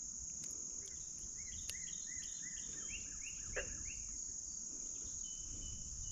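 Crickets chirping in a steady high drone. Partway through comes a quick run of short chirping notes, about two or three a second, with a couple of faint clicks.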